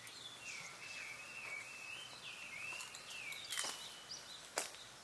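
Campfire with firewood whistling: a faint, thin, wavering high whistle of steam escaping from the burning wood that runs for about three and a half seconds and then fades, followed by two sharp crackles near the end.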